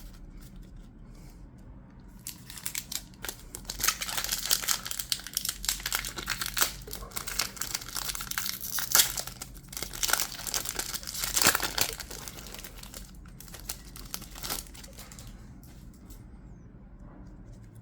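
Foil wrapper of a Pokemon trading card booster pack crinkling and being torn open by hand: a dense run of crackles lasting about thirteen seconds, with the sharpest snaps near the middle.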